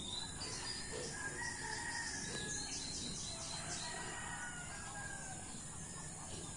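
Faint rooster crowing, a drawn-out call of about a second, with a small bird giving a quick run of high chirps, about five a second, a couple of seconds in.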